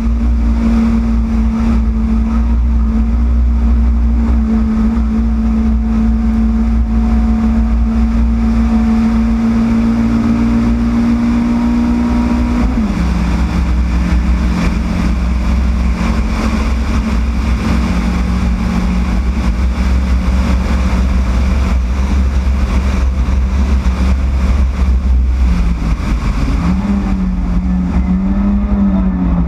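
Yugo race car's four-cylinder engine running at steady, high revs, with a heavy low rumble underneath. About halfway through the pitch drops suddenly to a lower steady note, and near the end the revs rise and fall a few times.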